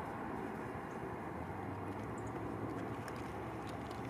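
Steady outdoor background noise, with a low hum setting in about a second and a half in and a few faint high ticks.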